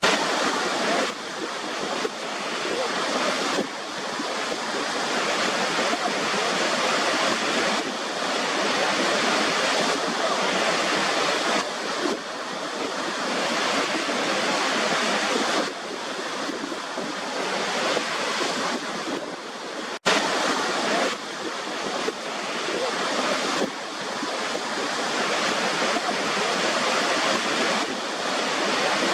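Waterfall: a steady rush of falling water that cuts out for an instant about two-thirds of the way through.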